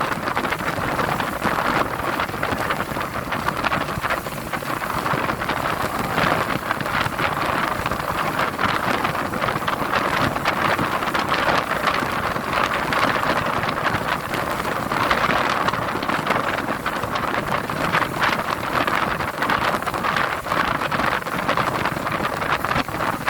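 Rough sea: a steady rushing of waves and surf that swells and eases, with wind on the microphone.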